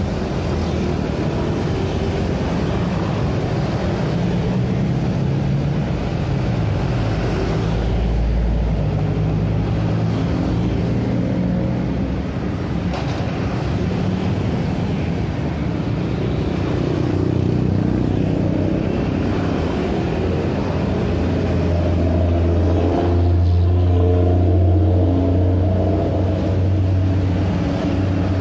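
Busy street traffic: a steady stream of motor scooters and cars passing close by, their engines and tyres running together. A bus engine hums loudest near the end as it passes.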